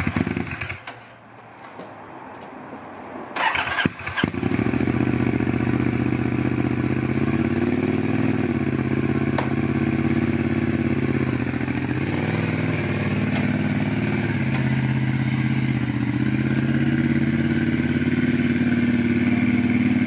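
Triumph Scrambler's parallel-twin engine, breathing through a new TEC stainless high-level exhaust, starts and catches about four seconds in. It then settles into a steady idle that wavers a little in pitch now and then.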